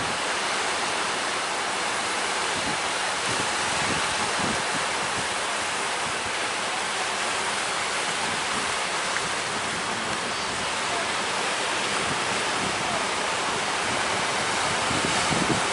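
Steady, unbroken rushing noise of strong wind and surf at sea.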